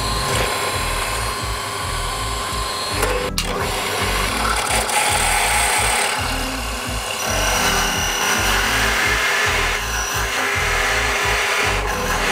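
Clarke bench drill press running and boring into a block of wood, first with a small bit and then, after a cut about three seconds in, with a larger cylindrical cutter.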